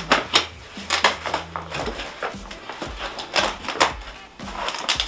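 Cardboard shipping box being torn open by hand: several sharp, irregular rips and scrapes of cardboard, with rustling between them.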